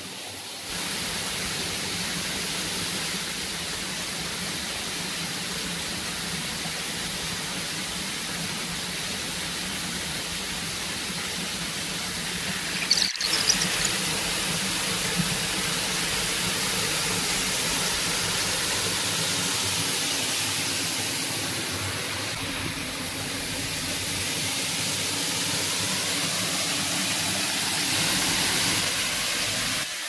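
Waterfall rushing: a steady hiss of falling water, with a brief click about 13 seconds in.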